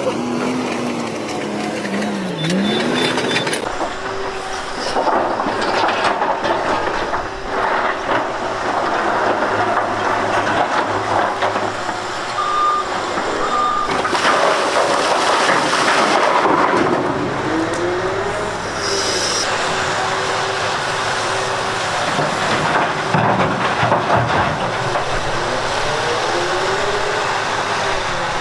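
Heavy diesel machinery running under load, its engine pitch rising and falling several times as it revs, with clattering mechanical noise.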